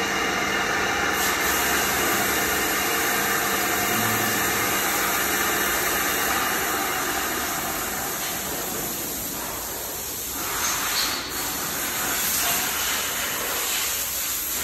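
DPM CNC bed mill running under power, a steady whirring hum with hiss that eases somewhat about two-thirds of the way through.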